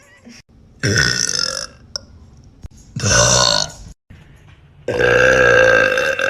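A woman burping deep, three times: two short burps about two seconds apart, then a longer one of nearly two seconds starting about five seconds in.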